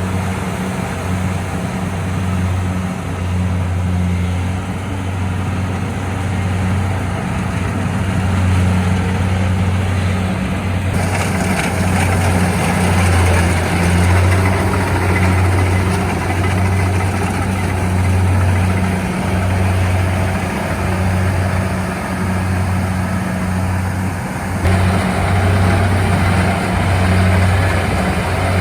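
Engine of a rice-harvesting machine running steadily with a low hum; a harsher, hissing noise joins about eleven seconds in.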